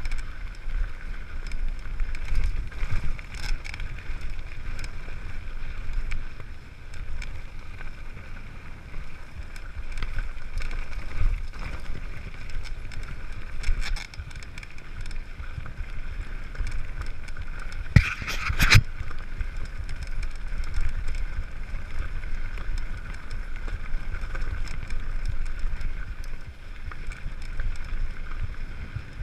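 Mountain bike riding fast down a gravel dirt track: steady wind rumble on the microphone and tyre noise over the loose surface, with frequent rattling clicks from the bike over bumps. Two sharp knocks stand out about two-thirds of the way through.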